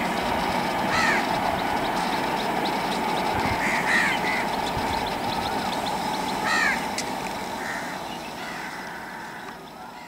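A passing LHB passenger train's rumble fading away as it runs off into the distance, with crows cawing repeatedly over it.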